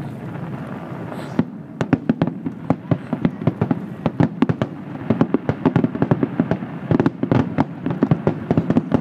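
Aerial fireworks display: after a second and a half of hissing, a rapid barrage of sharp bangs sets in, several a second, over a steady low rumble.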